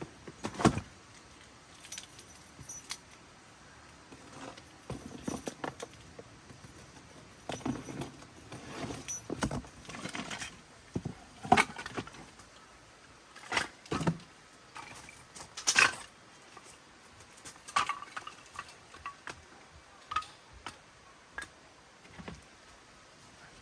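Irregular clinks and clatters of small hard objects being handled and set down, some ringing briefly like metal, at about one or two a second, the loudest a little past halfway and about two-thirds of the way through.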